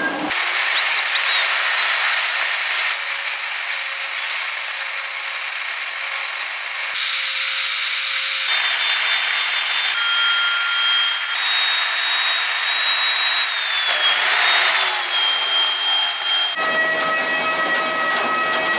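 Jet airliner engine noise: a steady rushing hiss with high whining tones that change pitch abruptly every few seconds, one tone dipping and falling about two-thirds of the way through. About three seconds before the end it switches suddenly to a lower, fuller hum with steady whines.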